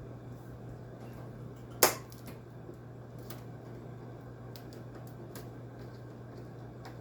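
One sharp metallic knock about two seconds in, then a few light clicks, as tools and parts are handled while the metal cabinet of a window air conditioner is taken apart. A steady low hum sits underneath.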